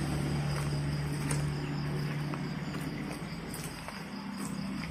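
Night-time ambience: a steady low hum with insects chirping in the background, and a few faint clicks.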